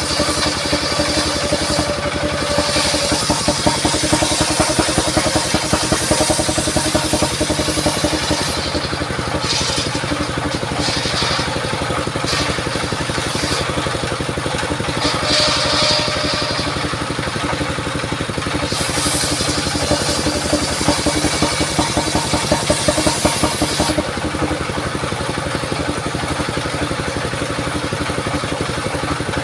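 Engine of a mobile circular sawmill running steadily while its blade cuts a mahogany log, the high hiss of the cut coming and going.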